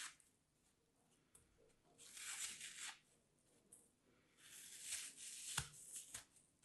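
Pressed kinetic sand being broken apart by hand: two soft, crumbly crunching bursts as pieces tear away, the second with a sharp click partway through.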